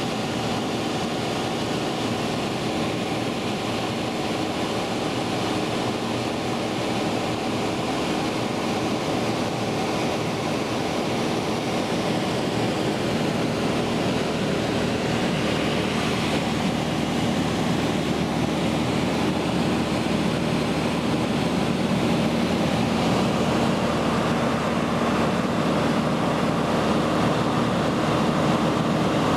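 Steady drone of a Scottish Aviation Bulldog's four-cylinder Lycoming piston engine and propeller in cruising flight, heard inside the cockpit. It grows slightly louder in the second half.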